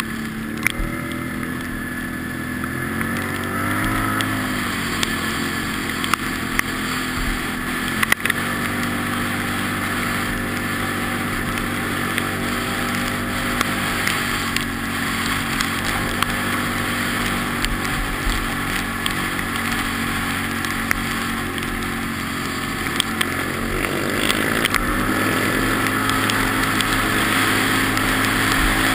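Quad bike (ATV) engine running under way on a dirt track, its pitch dipping and rising with the throttle a few seconds in and again near the end, over wind noise. A few sharp knocks stand out in the first eight seconds or so.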